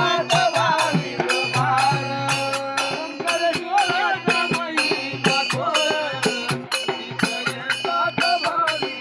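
Men singing a devotional Marathi folk bhajan. A hand-held frame drum and other small percussion keep a quick, steady beat under the voice.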